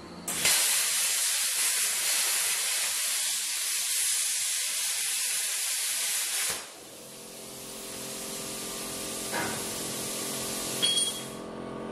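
Compressed air hissing hard and steadily for about six seconds, then cutting off suddenly. Background music follows, with a couple of light clicks near the end.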